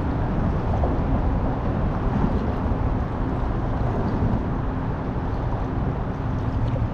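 Steady wind noise buffeting the microphone, heaviest in the low end, with moving water around a kayak; no distinct events.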